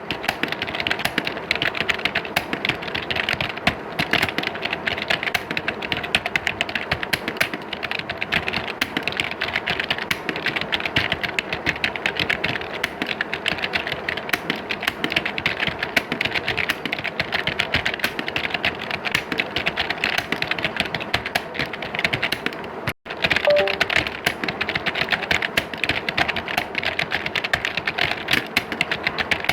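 Dense, continuous clatter of computer keyboards being typed on, many keys at once like a room full of typists. It cuts out for a split second about three quarters of the way through, then carries on.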